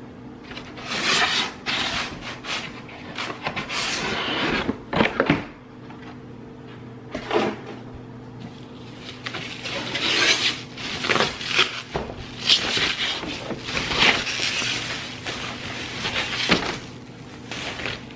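Cardboard packaging being handled: the molded pulp insert scraping out of the box in the first few seconds, then a plastic bag rustling and crinkling in bursts as the coffee maker is drawn up out of the carton. A faint steady low hum runs underneath.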